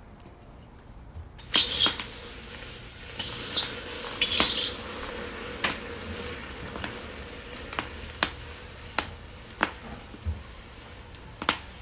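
Hot mustard oil sizzling in a pan on the stove, with a steady hiss that starts about a second and a half in. Three louder bursts of sizzle come in the first few seconds, and sharp pops and clinks of pan and utensils are scattered throughout.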